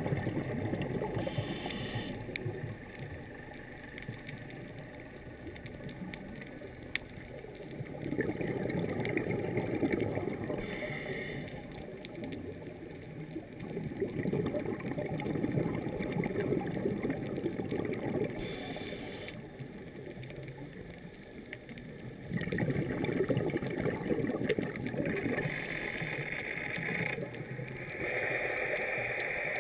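Scuba regulator breathing heard underwater: several stretches of exhaled bubbles gurgling, a few seconds apart, with quieter stretches between them.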